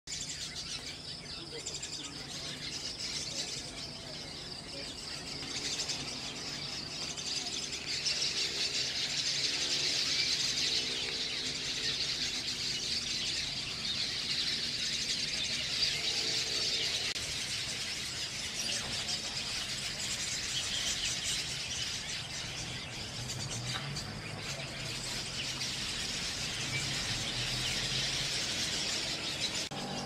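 A large roosting flock of cucak keling birds chattering continuously in a tree at night, a dense mass of overlapping high chirps and squeaks that swells for a while in the middle.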